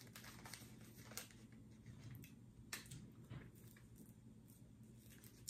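Near silence with a few faint scattered clicks and crinkles of a candy wrapper being handled.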